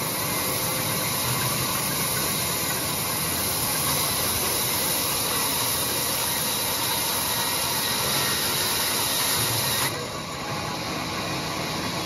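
Band saw ripping a teak plank lengthwise: the running blade makes a steady, hissing cutting noise. About ten seconds in the hiss drops off suddenly as the blade leaves the cut, and the saw keeps running.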